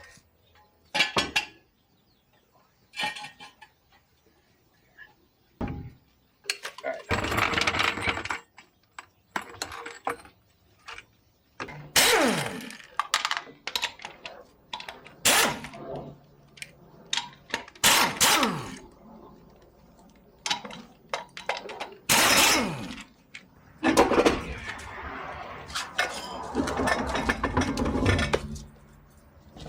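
Hand wrenches and metal parts clinking and clanking while the nuts and bolts of a rusted rear shock absorber are worked loose, with several longer scrapes that fall in pitch and a busier patch of scraping and clatter near the end.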